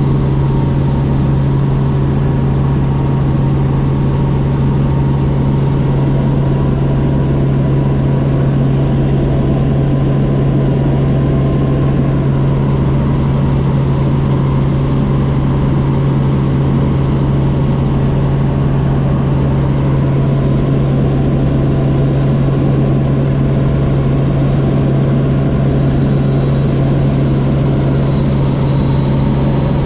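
Helicopter running in flight: a loud, steady drone of engine and rotors with a low hum and a faint high whine.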